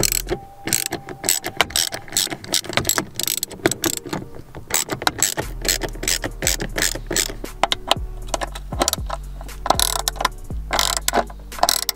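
Hand ratchet clicking in quick runs as screws are driven and tightened to fix an armrest bracket to the car's centre console, with background music underneath.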